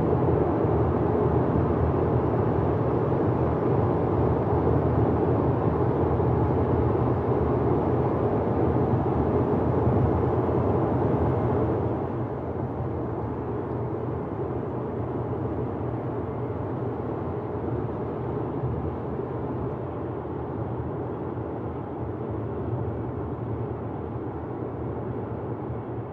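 Steady road and engine noise inside a car driving at highway speed. About twelve seconds in it drops a little in level and turns duller.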